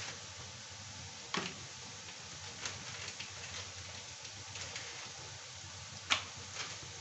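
Sliced onions sizzling in hot oil in a kadhai: a steady hiss with a few sharp crackling pops, the loudest about six seconds in.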